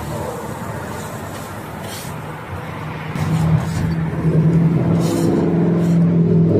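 A motor-vehicle engine runs close by as a steady low hum, which swells louder from about three seconds in. Over it come a few light clinks and scrapes of a metal spatula against a clay pot and a griddle.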